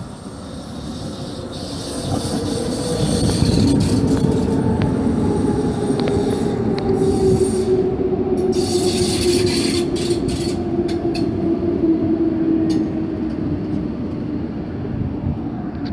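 DB Class 420 S-Bahn electric multiple unit pulling into the platform and slowing, its motor whine falling steadily in pitch as the wheels rumble. Short high squeals and hisses come about halfway through.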